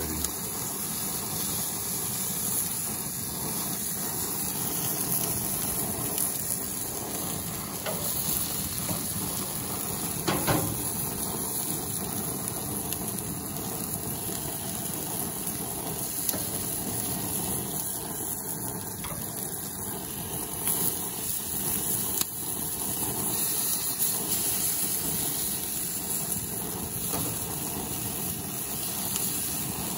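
Baby octopus sizzling on the hot grates of a gas barbecue grill, a steady crackling hiss with a few brief knocks.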